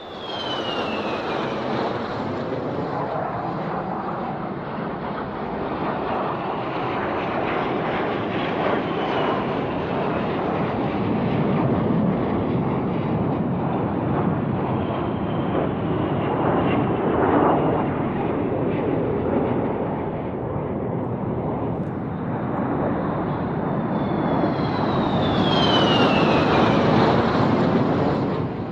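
Fighter jet engines roaring steadily, with a high whine that falls in pitch at the start and again near the end, where the roar swells slightly.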